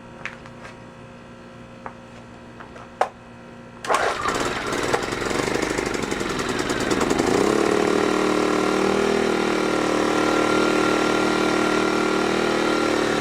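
Earthquake IG800W 800-watt inverter generator's small engine being started on choke: a few light clicks, then it fires about four seconds in, runs unevenly for a few seconds and settles into a steady run.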